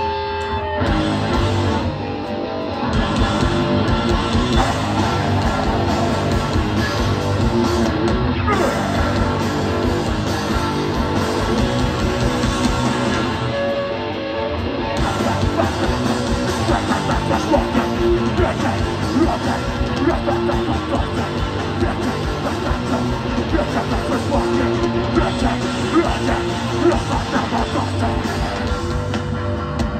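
Live hardcore punk band playing loud and fast, with distorted electric guitars, bass and drums. The full band comes in about a second in, after ringing guitar notes.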